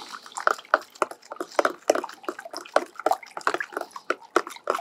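Salt and vinegar sloshing in a plastic tub as they are stirred together by hand for a rust-removal bath, with a quick, irregular run of small splashes and drips.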